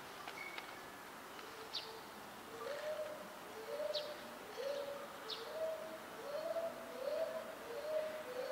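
A dove cooing outdoors: a repeating series of short low notes, paired and stepping up and down in pitch, that starts about two and a half seconds in. A few sharp high chirps from small birds come over it.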